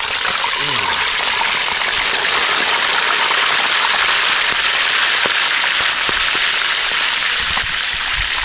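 Grouper frying in hot oil in a wok, a loud steady sizzle just after the fish has been turned over, with a few low knocks near the end.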